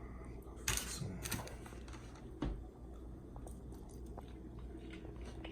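A person biting into and chewing a slice of homemade vegan veggie pizza: three crisp crunches in the first two and a half seconds, then fainter chewing.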